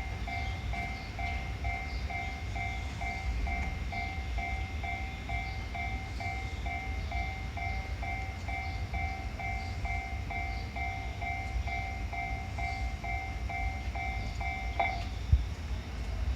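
Japanese level-crossing alarm ringing its repeated two-tone electronic 'kan-kan' bell, about two and a half strikes a second, over a low steady rumble. The bell stops about fifteen seconds in, and a single sharp knock follows.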